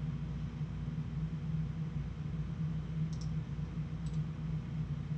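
Computer mouse clicking twice, about three and four seconds in, faint over a steady low hum.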